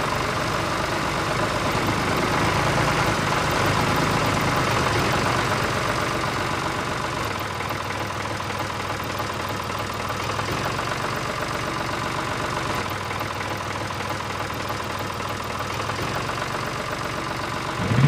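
Steady motor running of a small DIY toy tractor as it drives over loose soil, an even mechanical drone like an engine idling.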